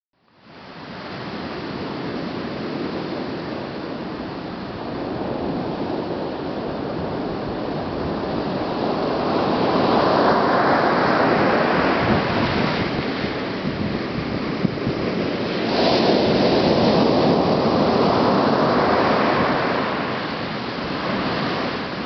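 Pacific Ocean surf breaking and washing up a sandy beach: a continuous rush of water that fades in at the start and swells louder twice, about ten and sixteen seconds in, as waves break.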